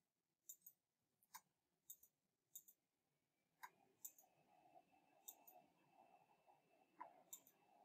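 About a dozen faint computer mouse clicks, scattered and irregular, over near silence, with a faint steady hum coming in about halfway through.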